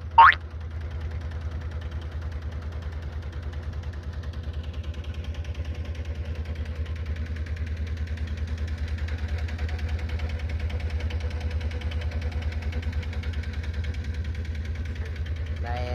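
Boat engine running steadily, heard from aboard the boat as a low drone with a fast, even pulse. A short rising swoosh sounds just after the start.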